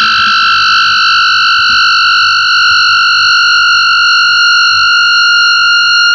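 SG electric guitar through a Big Muff fuzz and MXR Analog Delay with light reverb, holding one steady, high-pitched distorted tone with overtones.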